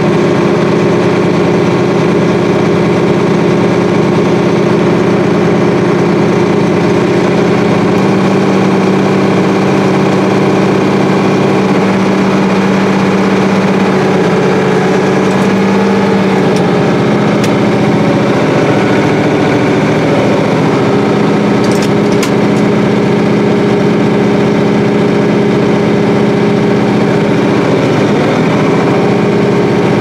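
Farm diesel engine running steadily under load, heard from inside a cab while a combine's unloading auger pours shelled corn into a grain cart. The engine's pitch dips slightly a few times.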